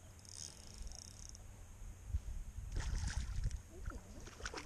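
Water splashing as a small bass is reeled up to the side of the boat, with a brief high whir in the first second and splashes that get louder toward the end.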